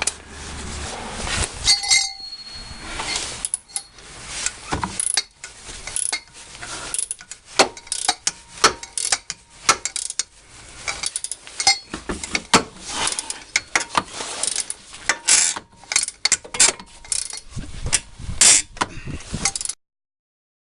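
Ratcheting socket wrench clicking and metal tools clanking as a rust-seized, torch-heated wheel hub bolt is turned out after breaking free. Irregular sharp clicks, some louder clanks among them, until the sound cuts off abruptly near the end.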